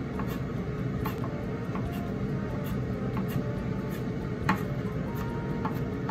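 Chef's knife chopping ginger on a wooden cutting board: irregular sharp knocks of the blade striking the board, one louder chop about four and a half seconds in.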